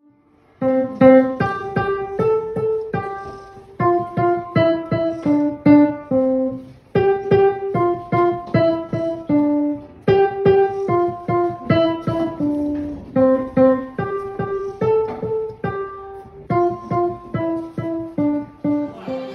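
Digital piano played by a young child: a simple melody one note at a time, in short phrases with brief pauses between them, starting about half a second in.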